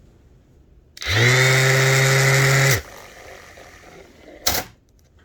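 DeWalt 20V Max cordless palm sander switched on, its motor spinning up quickly and running steadily for just under two seconds before being switched off: the repaired sander running again. A single knock near the end.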